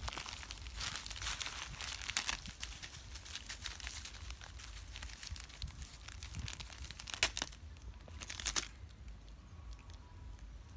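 A monkey crinkling and tearing at a plastic snack packet: a dense run of crackling, two sharper, louder crackles about two-thirds of the way through, then quieter.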